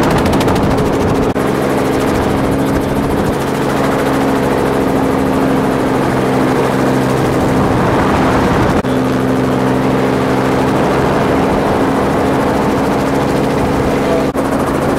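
Helicopter engine and rotor heard from on board: a loud, steady drone with several held tones. The sound drops out for an instant three times.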